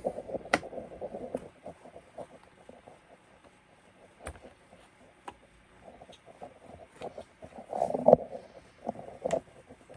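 Slip-on rubber recoil pad being worked onto a Remington 870's synthetic buttstock: irregular rubbing of rubber against plastic, with a few sharp clicks and knocks. The loudest bump comes about eight seconds in.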